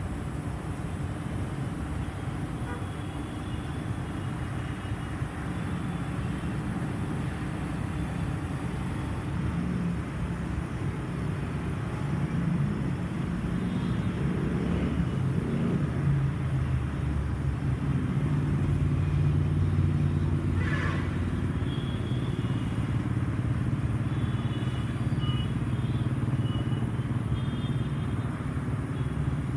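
LG air conditioner outdoor unit running: a steady low hum from its fan and compressor, with several low tones in it. It grows somewhat louder a little before halfway through.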